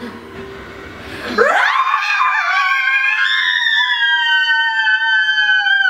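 Two women screaming together in excitement: one long, high, held scream that starts about a second and a half in and lasts over four seconds, its pitch sagging slightly.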